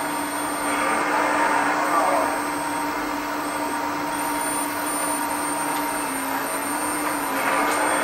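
Hydraulic pump of a LESU RC scale excavator running with a steady whine, with louder rushing surges about a second in and again near the end as the valves open to work the boom and grapple.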